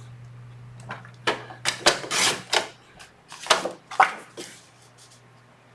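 Gold cardstock being cut and handled: a run of short, crisp cutting and paper sounds clustered in the middle few seconds.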